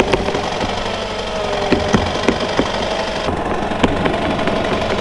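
Wacker Neuson compact track loader's engine running steadily under load with a steady whine, while irregular sharp clicks and knocks come from the machine as it is pulled out of frozen snow.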